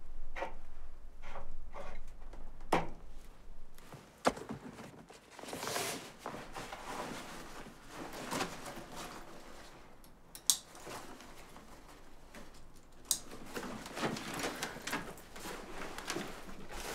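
Supplies being handled and packed: plastic water bottles and other items rustled and knocked about, with three sharp clacks standing out.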